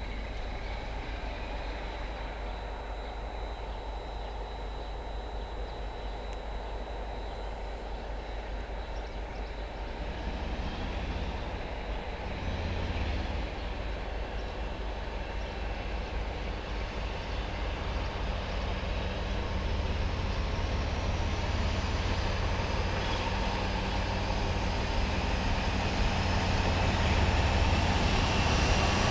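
A train approaching on the line, its low rumble growing steadily louder over the second half.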